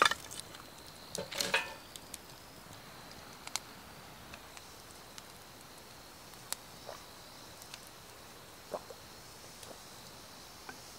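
Split firewood knocking and clattering as it is set onto a burning fire pit: a sharp knock at the start and a short clatter about a second and a half in. After that, only scattered faint clicks over a low steady hiss.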